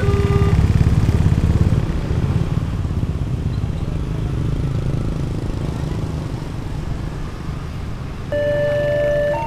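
Railway level-crossing warning siren sounding two alternating steady tones; it cuts off about half a second in. A low vehicle rumble follows, loudest in the first two seconds and then fading. About eight seconds in, another crossing siren starts its two-tone alternation at a higher pitch.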